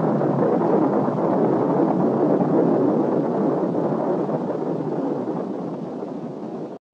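Dense, continuous rumble of a rocket exploding and its fireball burning. It eases slightly in the later part and cuts off abruptly near the end.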